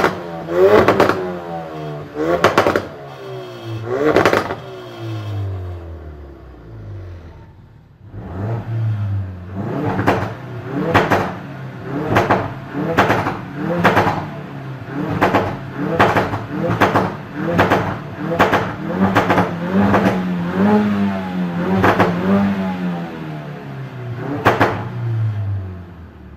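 2016 Ford Focus RS's turbocharged 2.3-litre four-cylinder revved in quick blips about once a second, each rev falling away with crackles and pops from the exhaust. There is a short lull about a quarter of the way in, and a longer held rev near the end.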